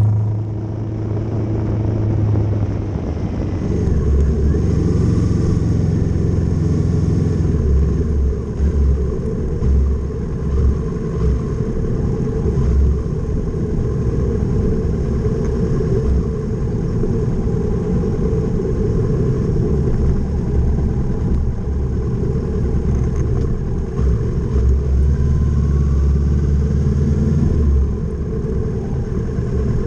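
Kawasaki Z650 motorcycle engine running under way, its note rising and falling as the throttle is opened and closed, with changes about 4, 8 and 28 seconds in.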